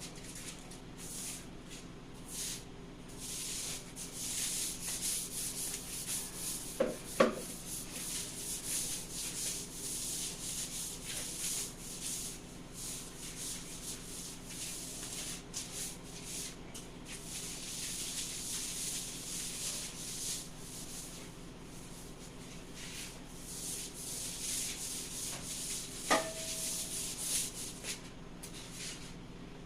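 Scrubbing a hard surface by hand: a long run of repeated rubbing strokes, with two short knocks, one about 7 seconds in and one near the end.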